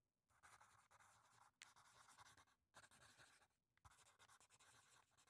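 Faint pencil scratching on paper, in strokes about a second long with short breaks between them.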